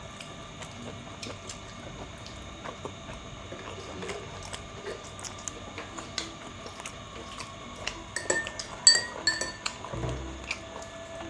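Cutlery clinking and scraping on plates and bowls during fast eating, with scattered small clicks. A few louder, ringing clinks come near the end.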